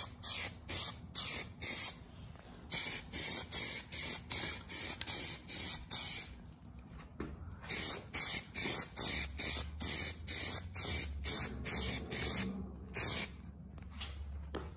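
Aerosol can of Plasti Dip sprayed in quick short bursts, about three a second, in three runs with brief pauses between: a first light coat going on.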